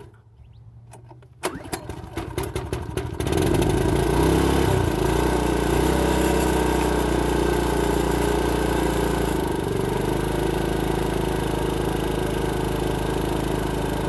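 Predator 4400 inverter generator's single-cylinder engine cranking for about two seconds on a cold start after a week unused, then catching and running steadily. Its note settles slightly lower about two-thirds of the way through.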